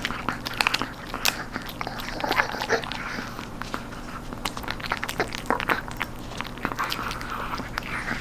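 Short-haired Chihuahua gnawing a home-dried duck knee-joint treat: irregular crunching and cracking as its teeth break the crisp, dried cartilage and bone.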